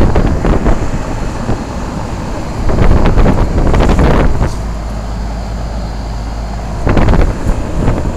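Wind buffeting the microphone in irregular gusts about a second long, over a steady low hum.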